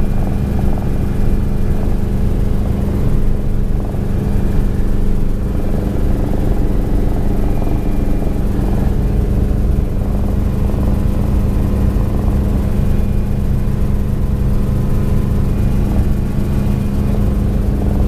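Small helicopter in flight heard from inside the cabin: engine and rotors running steadily, a constant low hum.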